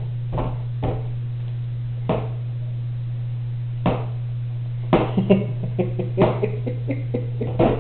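A child's tray being opened and shut, giving a string of irregular knocks and clacks, several in quick succession near the middle, over a steady low hum.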